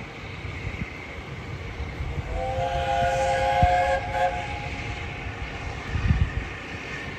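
A steam locomotive's chime whistle sounds a steady chord of several notes for about two seconds, starting a couple of seconds in, over the low rumble of a train.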